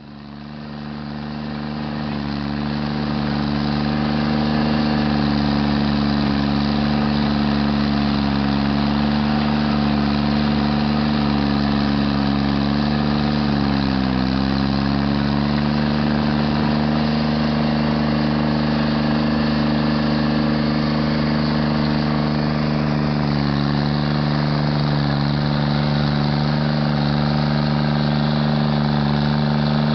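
Stump grinder engine running steadily, fading in over the first few seconds, with its pitch dipping briefly about halfway through.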